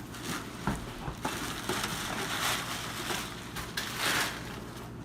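Rustling and scraping of carpet being handled during installation, with a few light knocks, over a steady low hum.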